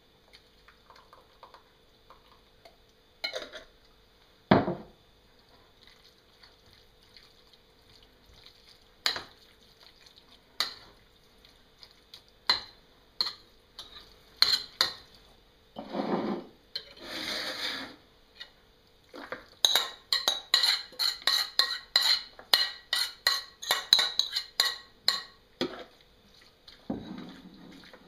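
Spoon clinking and scraping against a ceramic bowl while raw dog food is mixed, with scattered knocks and a sharp knock about four seconds in. A fast run of clinks, about three to four a second, comes in the second half.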